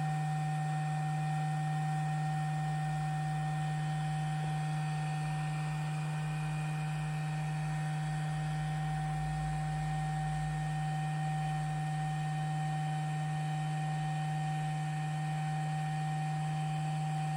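Steady electrical hum: a constant low drone with fainter higher tones above it, unchanging throughout.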